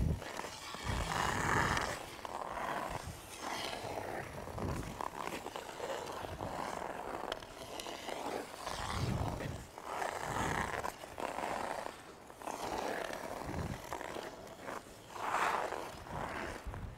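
Hockey skate blades carving and scraping on the ice through a run of crossover strides, a noisy swish with each push every second or two.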